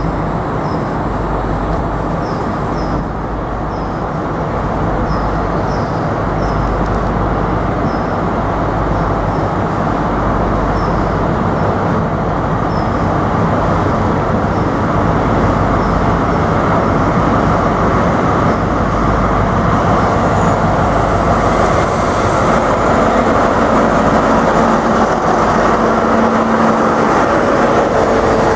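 InterCity 125 high-speed train approaching and running past. The steady drone of its Class 43 diesel power car grows slowly louder, and from about twenty seconds in a rushing wheel-on-rail noise joins it as the power car and coaches go by.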